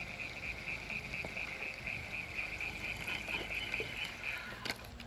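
A high-pitched, rapidly pulsing trill from calling wild animals, steady until it cuts off near the end, followed by one sharp click.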